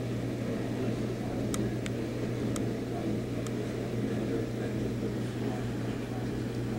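A steady low mechanical hum, with a few faint clicks in the first half.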